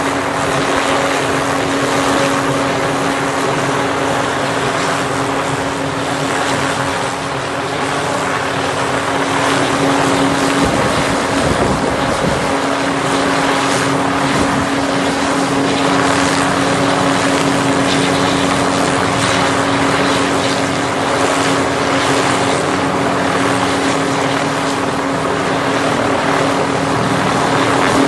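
Helicopter running steadily nearby: continuous engine and rotor noise with a steady hum, and a brief rumble of wind on the microphone partway through.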